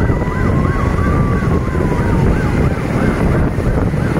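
An electronic siren wailing quickly up and down, about twice a second, over a steady rumble of wind on the microphone and vehicle noise.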